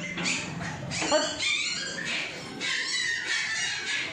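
Several puppies yipping and whining, a dense run of short high-pitched cries, many falling in pitch.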